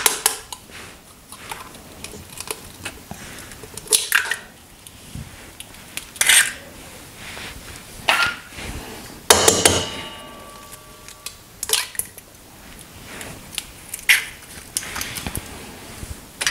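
Eggs knocked and cracked against the rim of a stainless-steel mixing bowl: a string of sharp knocks, the loudest about halfway through, after which the metal bowl rings briefly.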